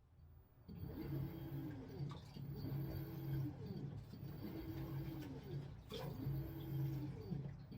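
LG top-loading washing machine agitating in its wash cycle: the pulsator motor hums and whirs in a repeating back-and-forth pattern about every second and a half, with churning water behind it. It starts up about a second in.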